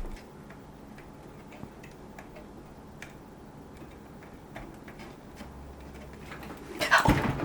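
Faint scattered clicks and light handling noise, then a louder flurry of clicks and rustling near the end, like hands working with small PC parts.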